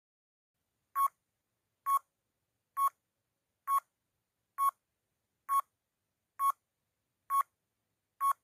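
Countdown timer sound effect: nine short electronic beeps, about one a second, starting about a second in.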